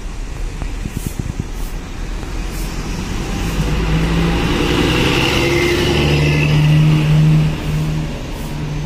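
Intercity coach's diesel engine pulling away and passing close by. It grows louder to a peak about seven seconds in, then drops away suddenly.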